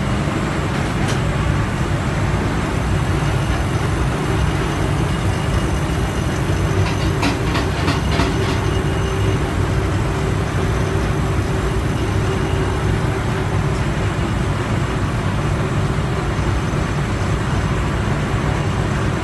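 Steady, loud hum and rush of running machinery, heaviest in the low end, with a faint steady tone and a few faint clicks about seven to eight seconds in.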